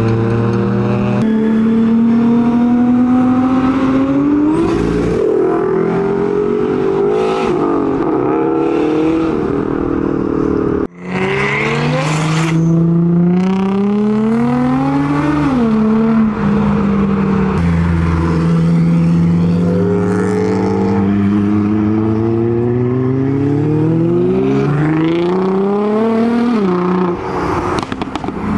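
Modified Japanese performance cars accelerating away one after another. Their engines rev up in a climbing pitch, and the pitch drops back at each gear change, several times over.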